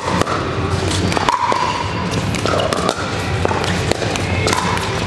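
Pickleball paddles striking a plastic ball and the ball bouncing on the court, many sharp pops at an irregular pace from several courts, echoing in a large gym hall.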